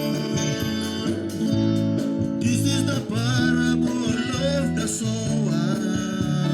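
Live gospel band music with held keyboard chords and guitar. A wavering melody line rides over them in the middle.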